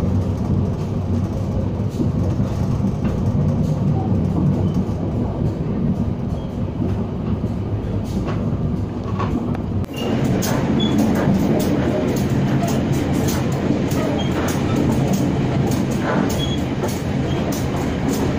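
Local passenger train running at speed, heard from inside a carriage: a steady low rumble of wheels and coach. About ten seconds in it grows louder and rattlier, with rapid clicks and clatter from the wheels on the track.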